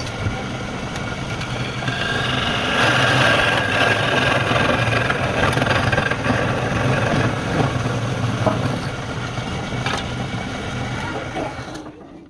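Wood lathe motor running with a steady hum while a turning tool cuts into the spinning wood, the cutting hiss growing louder through the middle and easing off before the machine stops near the end.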